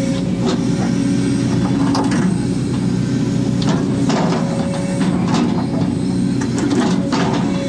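Case 250D excavator heard from inside its cab, its diesel engine running steadily under digging load. A higher whine comes and goes, and several short knocks sound as the bucket works the trench.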